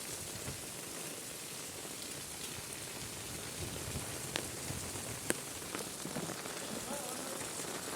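Heavy rain falling steadily as an even hiss, with a couple of sharper drop hits standing out a little after the middle.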